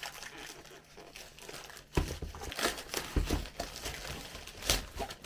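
Packaging rustling and crinkling as boxed Lego sets are handled, with a few knocks as boxes are picked up and set down: one about two seconds in, another a little after three seconds, and the loudest near the end.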